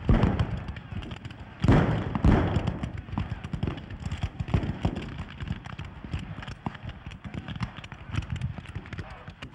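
Black-powder musket fire: a few heavy reports near the start and about two seconds in, each with a rolling rumble, then a steady crackle of scattered shots.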